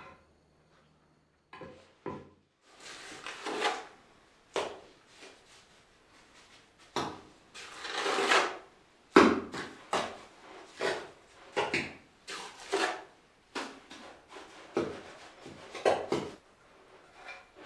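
Hand work on a flagstone floor: mortar scooped from a bucket and stone slabs shifted and set, giving an irregular run of short scrapes and knocks, the sharpest knock about nine seconds in.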